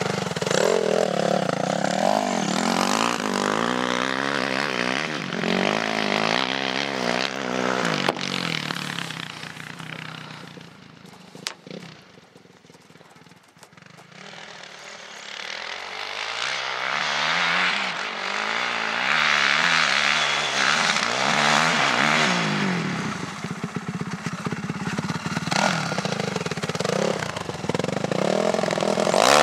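Motocross bike engine revving and changing pitch as the rider accelerates and shifts along the track. It fades to quiet about twelve seconds in, then grows loud again as the bike comes back round.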